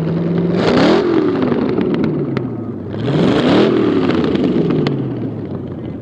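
Front-engine dragster's engine revved twice, each rev rising steeply in pitch and falling away, with a few sharp pops.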